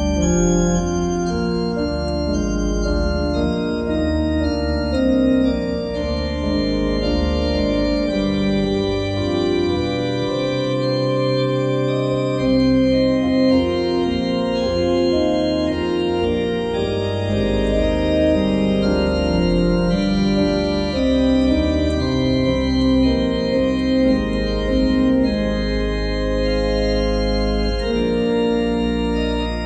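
Organ played with hands and pedals: sustained chords that change every second or so over low pedal bass notes. The bass drops out briefly about ten seconds in.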